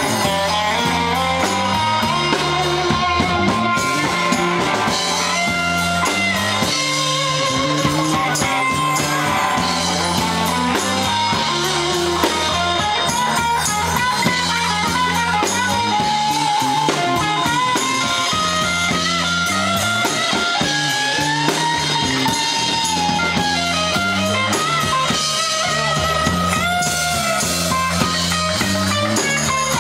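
Live rock band playing an instrumental passage: electric guitar carrying sustained, gliding lead lines over a repeating bass guitar figure and drum kit.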